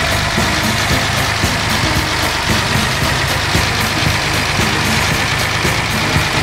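A 1971 Datsun 240Z's 2393 cc inline-six engine idling steadily.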